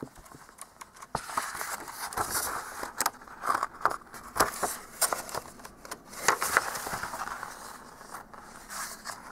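Paper rustling and scraping as the pages of a hardcover picture book are handled and turned, with irregular clicks and crackles.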